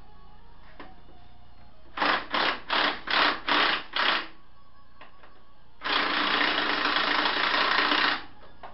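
Impact wrench rattling in six short bursts, about three a second, then running in one steady burst of about two seconds, breaking loose an engine mount bolt.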